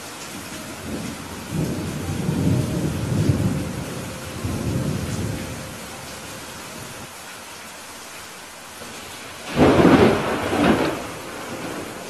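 Steady rain with thunder: a low rumble rolls for several seconds from about a second and a half in. Near the end comes a sudden, louder thunderclap that peaks twice before fading.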